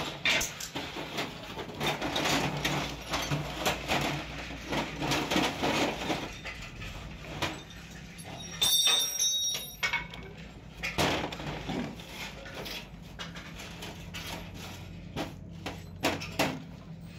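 Metal tools and engine parts clinking and clattering on a steel workbench, with a bright metallic ring about nine seconds in. A steady low hum runs underneath.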